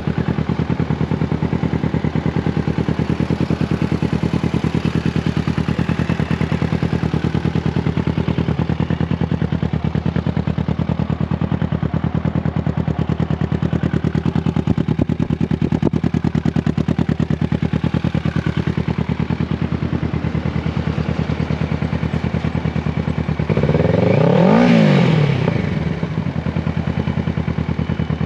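Kawasaki Z650's parallel-twin engine with a Two Brothers aftermarket exhaust idling steadily. Near the end it gets one short throttle blip that rises and falls back to idle.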